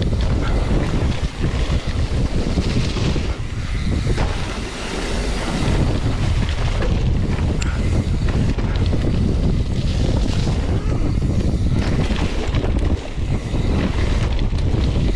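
Wind buffeting an action camera's microphone while a mountain bike is ridden down a dirt forest trail, with a steady low rumble from the ride.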